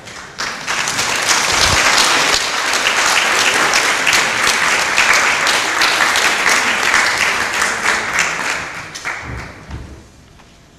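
Audience applauding, a dense patter of many hands clapping that begins just after the start and dies away about nine seconds in.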